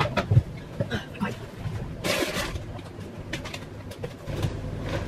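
Kitchen cupboards being rummaged through: a scatter of knocks and clicks as doors and containers are moved, with a rustling scrape about two seconds in.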